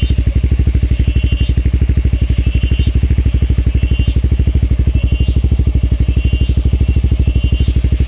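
Motorcycle engine idling close by, a steady even thumping of roughly nine to ten beats a second that does not change. A short high chirp repeats roughly every second over it.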